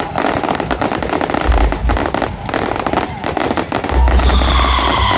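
Fireworks display: dense, rapid crackling from exploding crackle stars. Heavy low booms come about a second and a half in and again around four seconds in.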